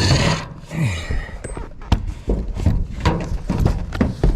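Scattered knocks and clunks on a metal pole-barn roof as someone works at the ridge cap, after a short noisy burst right at the start.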